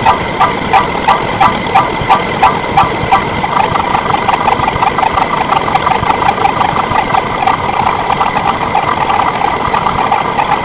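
Machine-like running noise with a steady high whine. Regular pulses come about three times a second for the first three seconds, then give way to a faster, fainter pulsing.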